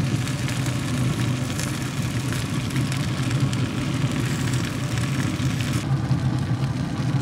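Pellet grill's draft fan running with a steady low hum.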